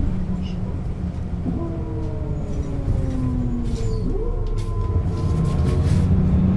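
1996 Setra S 315 UL bus running, with a deep engine rumble and a ZF gearbox whine that slowly falls in pitch, then glides up briefly about four seconds in.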